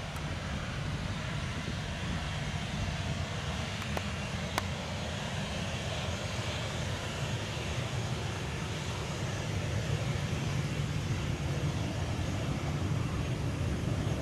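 Boeing 737-800 jet engines running at idle while the airliner taxis: a steady low rumble with a hiss above it, growing a little louder in the second half.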